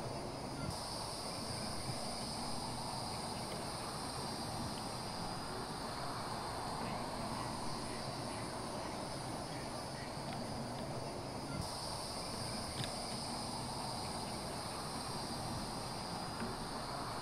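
Evening chorus of crickets or other night insects: a steady high-pitched trilling over a low outdoor hiss, its pitch bands shifting in strength about a second in and again about two-thirds of the way through.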